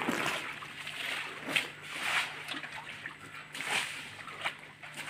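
Shallow, muddy pond water splashing and sloshing in irregular bursts as people wade through it, sweep a hand net and bail with a pail in a nearly drained, tarpaulin-lined pond.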